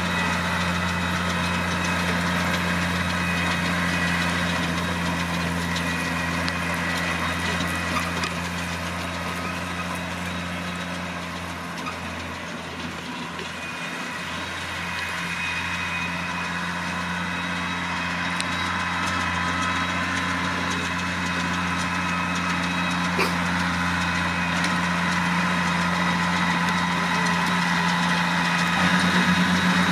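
New Holland T6070 tractor's six-cylinder diesel engine running steadily under load as it pulls and drives a Vicon RV 1601 round baler picking up hay, the engine and baler machinery making a continuous hum. The sound fades slightly about halfway through, then comes back up.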